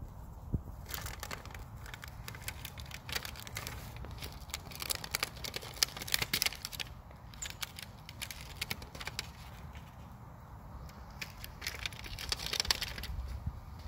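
Saint Bernard–Great Pyrenees puppy chewing a thin black plastic plant pot: irregular crackling and crunching of the plastic under its teeth. The crackles come thick in the first half, thin out past the middle and pick up again near the end.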